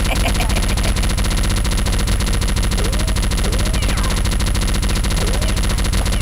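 Rapid automatic gunfire, a steady unbroken stream of shots, used as the sound of blasters firing in a Nerf gunfight.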